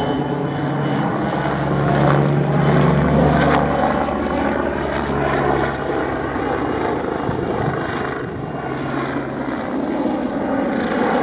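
Light helicopter flying overhead, its rotor and engine a steady low drone with slowly shifting pitch. It is loudest a couple of seconds in, then eases off a little.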